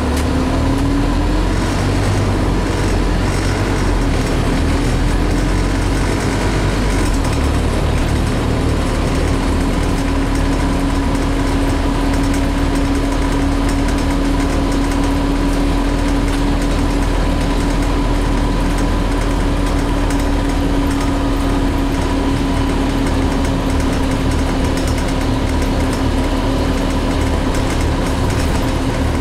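Scania CN280UB city bus heard from inside the passenger cabin while driving: engine and driveline running over road noise, with a whine that rises in pitch over the first seven or eight seconds and then holds steady.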